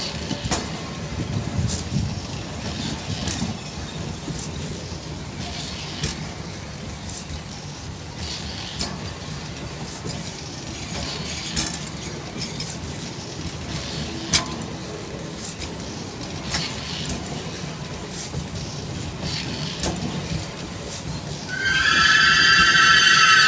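Passenger train running past, a steady rumble with irregular clacks of the wheels over rail joints. Near the end, loud music with several held tones comes in over it.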